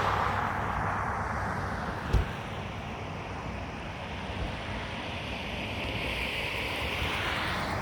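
Helicopter engine and rotor noise easing off and then running steadily, with wind noise over it; one short knock about two seconds in.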